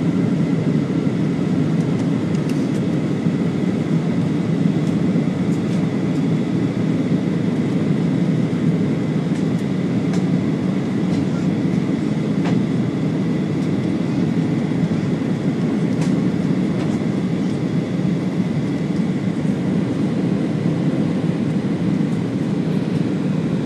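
Jet airliner cabin noise on the landing approach: a steady low rumble of engines and rushing air, with a faint steady high whine over it.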